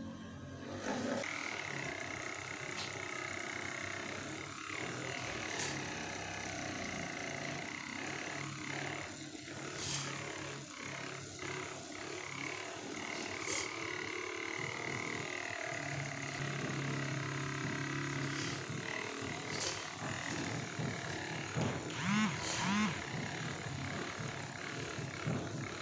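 Indistinct voices over a steady background hum.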